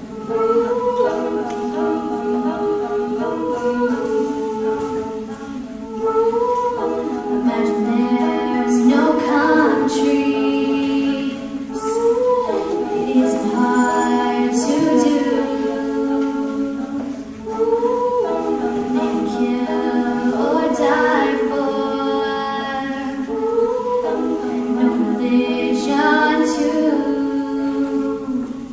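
A female a cappella group singing in close harmony: several voices holding sustained chords that shift every two seconds or so.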